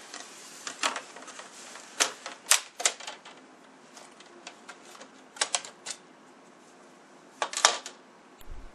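Plastic snap clips of an HP G71 laptop's screen bezel popping loose as the bezel is pried off by hand: a scattered series of sharp plastic clicks and snaps, some in quick pairs.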